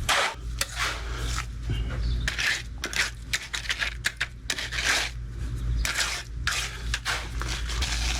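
Repeated short scrapes and crunches, irregular, a couple to a few each second, typical of shovels or rakes working through wet concrete. Under them a machine engine runs with a steady low hum.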